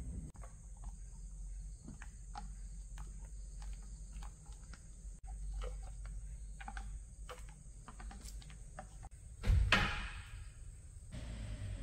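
Scattered light clicks and taps from a 1953 Singer hand-crank sewing machine as it is oiled and its handwheel handled, over a low steady rumble. A brief louder rush of noise comes near the end.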